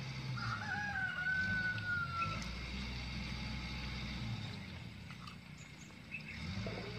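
A rooster crowing once: one long call of about two seconds, starting about half a second in, rising and then held and slowly falling, over a low steady hum.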